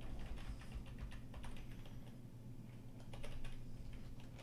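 Computer keyboard typing: a run of keystrokes during the first second and a half, a pause, then another short flurry of keys about three seconds in.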